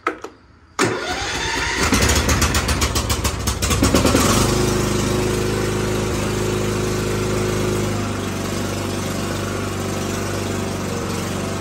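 Craftsman riding lawn mower engine being cranked by its electric starter, which has it sitting most of the season, for about three seconds, then catching about four seconds in and running steadily. The idle settles slightly lower near eight seconds in.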